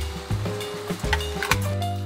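Background music with bass notes and drum hits.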